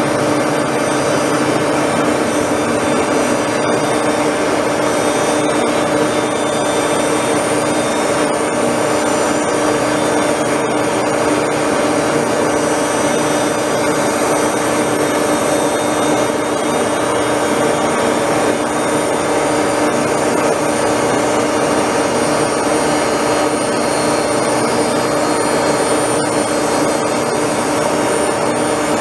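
Toolpost grinder running steadily on an Axelson engine lathe, its belt-driven wheel grinding the jaws of a spinning Bison 3-jaw chuck true to remove their splay and runout. A steady machine whine with a few held tones.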